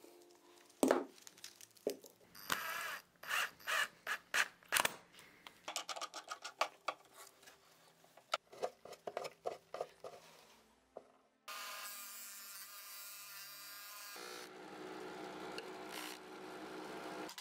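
Wooden knocks and clicks as a homemade sandpaper sanding drum is handled and fitted into a drill press. Then the drill press starts abruptly about eleven seconds in and runs steadily. In the last few seconds the drum sands the edge of a plywood piece, adding a rubbing, grinding noise.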